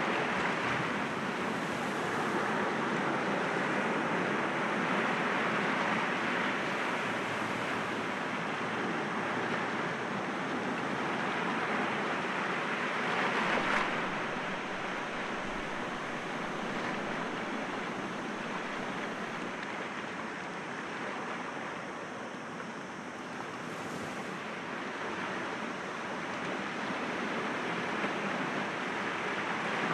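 Sea waves breaking against rocks and washing back, a continuous surf wash that swells and eases, with one stronger wave about halfway through.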